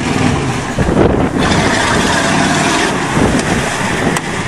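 1991 Ford F250's 7.3-litre IDI V8 diesel engine running hard under load as the truck is driven, with a dense rush of noise over it. A single sharp tick near the end.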